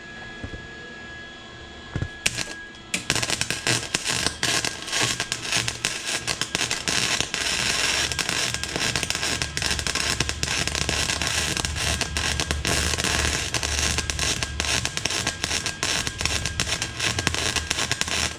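Electric arc welding onto a broken cylinder head stud to extract it: a couple of short strikes about two seconds in, then the arc crackles and sputters continuously until it cuts off at the end.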